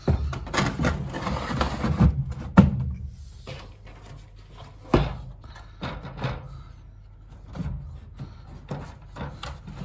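Clunks and knocks of a Zanussi TC481W condenser tumble dryer's parts being handled: a scraping rattle for the first couple of seconds, a sharp knock at about two and a half seconds, a heavy thud about five seconds in, then a few light clicks.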